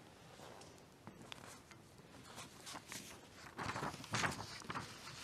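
Faint rustling and shuffling of someone moving about and handling things, with soft clicks throughout and a few louder scuffs from about three and a half seconds in.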